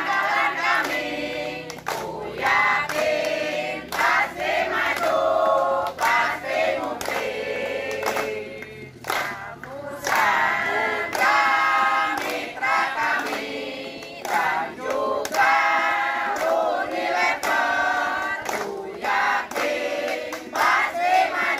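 A crowd of mostly women's voices singing together in short phrases, with hands clapping along.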